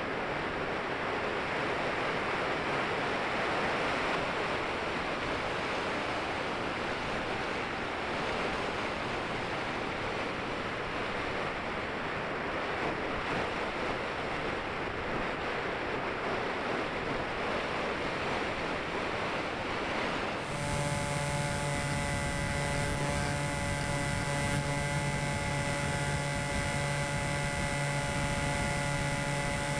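Wind rushing over the Falcon Evo RC model plane's onboard camera, with no motor heard. About twenty seconds in, the plane's motor and propeller suddenly come on and run with a steady hum.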